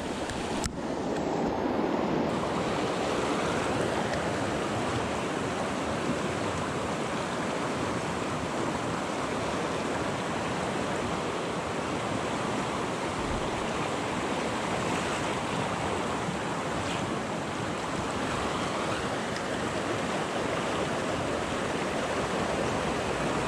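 Mountain river rushing over shallow rocky rapids, a steady whitewater rush.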